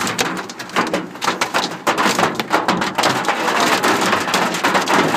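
Hail and rain drumming on a car's roof and windscreen, heard from inside the car: a dense, irregular rattle of hard impacts that grows heavier about two seconds in.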